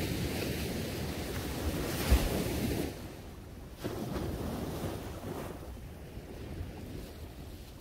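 Small waves breaking and washing up a sandy shore in two surges, with wind rumbling on the microphone and a brief low thump about two seconds in.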